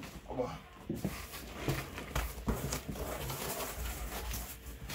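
Cardboard shipping box being lifted from the floor and handled, its flaps pulled open: rustling and scraping of cardboard with a few light knocks.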